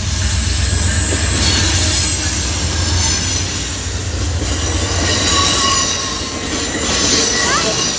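Amtrak passenger train with Superliner bilevel cars passing close by: a steady heavy rumble of wheels on the rails with high-pitched wheel squeal.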